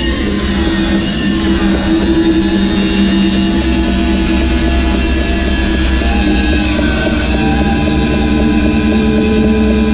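Bandsaw running steadily, its blade cutting through a large block of burr wood.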